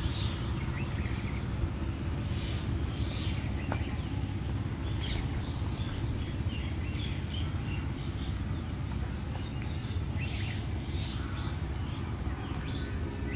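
Open-air paddy-field ambience: a steady low rumble with birds chirping on and off, in short scattered calls.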